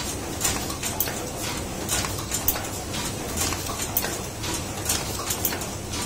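Paper cup forming machine running, its rotary mould turret and presses clacking about twice a second over a steady mechanical hum.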